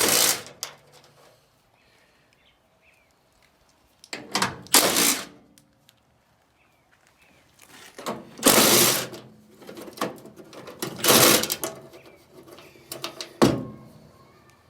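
A power driver spinning out body screws from the front grille and fenders of an International Scout, in four or five separate bursts about a second long with pauses between.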